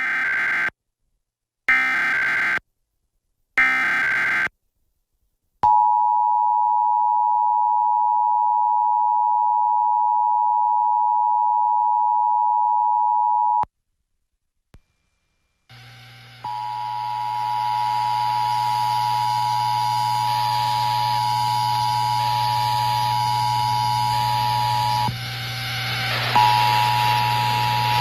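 Emergency Alert System encoder. It opens with three short bursts of the digital header, a warbling data screech. Then the two-tone attention signal (853 and 960 Hz together) is held steady for about eight seconds. After a short gap the same two-tone signal sounds again over a steady hum and hiss, dropping out for about a second near the end.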